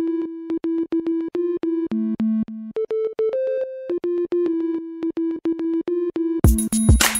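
Electronic background music: a short, bouncy synthesizer riff of staccato notes repeating, with a drum beat of kick and cymbal coming in near the end.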